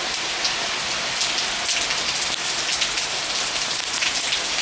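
Heavy rain of a severe thunderstorm falling steadily, a constant hiss dotted with many small drop hits.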